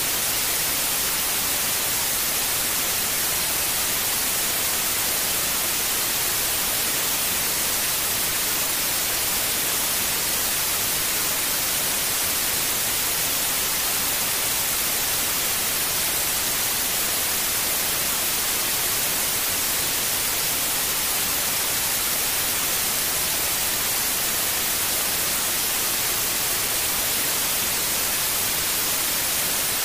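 Steady sleep-aid white noise: an even, unchanging hiss, strongest in the high range.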